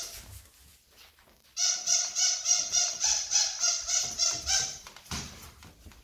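Toddler's squeaky shoes squeaking in quick succession as she walks, about four high squeaks a second for three seconds, then soft taps of steps on the tile floor.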